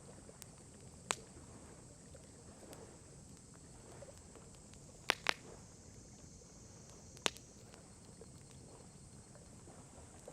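Wood campfire crackling: a low, steady hiss of burning with four sharp pops, one about a second in, a close pair near the middle and another a couple of seconds later.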